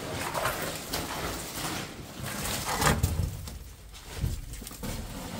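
Boots, clothing and gear scuffing and scraping against rock as a person climbs through a narrow crevice, with a sharper knock about three seconds in.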